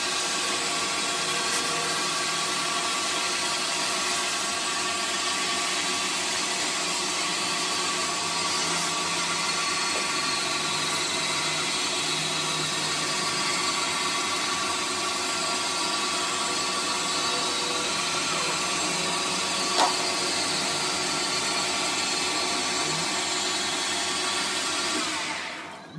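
Metal lathe running steadily while a ball stud spinning in its chuck is polished by hand, a steady machine hum with many fixed tones. There is one sharp tick about twenty seconds in, and the sound falls away near the end as the lathe stops.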